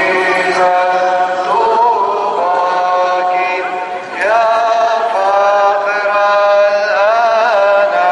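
A hymn chanted by a priest into a handheld microphone and played through a portable loudspeaker, with long held notes and ornamented turns, and a short breath about four seconds in.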